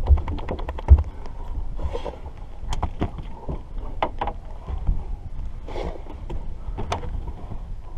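A wet black dog moving about on a boat deck right by the microphone: scattered light taps and knocks, and two brief hissy noises, over a steady low rumble of wind on the microphone.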